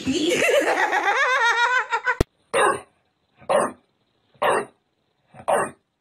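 A woman laughing for about two seconds, then an English bulldog puppy giving short barks about once a second at a picture of a bulldog.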